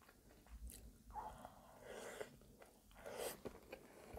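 Close-miked chewing of a mouthful of soft, gooey caramel cinnamon French toast: faint wet mouth clicks throughout, with a few louder mouth noises about one, two and three seconds in.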